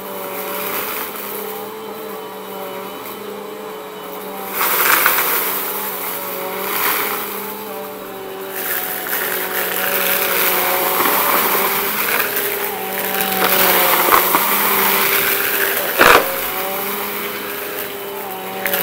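Bissell compact upright vacuum cleaner running steadily on carpet, with bursts of crunching and rattling as it sucks up a pile of confetti, lint and dry debris. A single sharp knock about sixteen seconds in.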